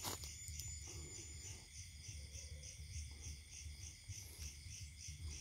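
Forest insects trilling in a steady pulsing rhythm, faint, over a low rumble.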